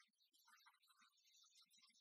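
Near silence: the soundtrack holds only a very faint hiss.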